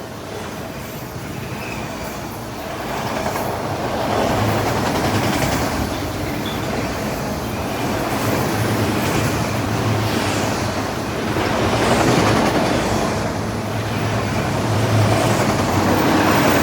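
CPKC freight train rolling past at speed: steady wheel-on-rail roar that swells and eases every few seconds as the cars go by.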